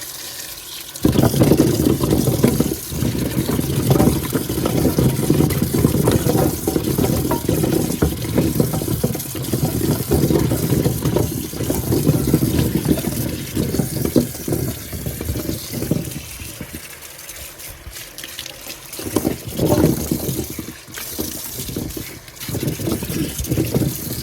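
Tap water running into a sink while freshly dug potatoes are washed under it. The water starts about a second in, and the flow and splashing rise and fall as the potatoes are handled.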